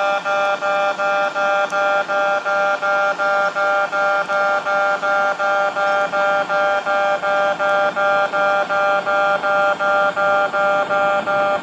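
Japanese level crossing alarm ringing its electronic bell in a fast, even rhythm, about three to four strikes a second, warning that a train is approaching.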